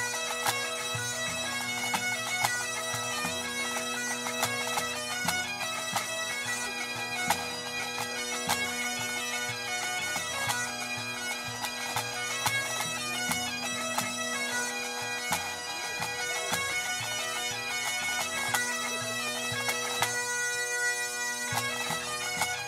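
A full pipe band playing: Great Highland bagpipes over a steady drone, with sharp drum strikes cutting through the melody.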